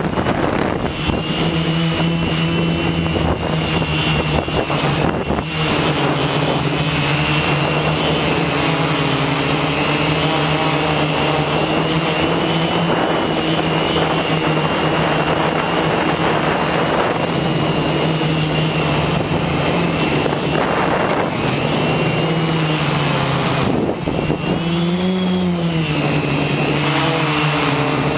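FPV drone's electric motors and propellers buzzing steadily, picked up by its onboard camera, with a wavering pitch that rises and falls again near the end as the throttle changes.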